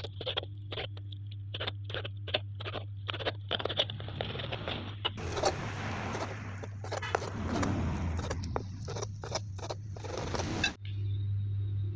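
Large kitchen knife chopping through boiled beef offal and knocking on the cutting board, quick knocks about three a second that stop abruptly near the end.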